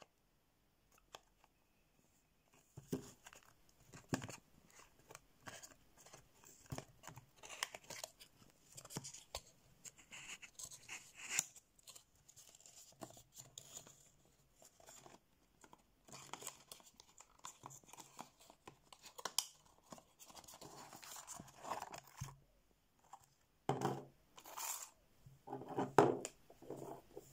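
Wrapping on a small cardboard perfume box being torn and crinkled, then the box lid and insert handled with small clicks and scrapes; a few louder knocks near the end as the glass bottle is lifted out and handled.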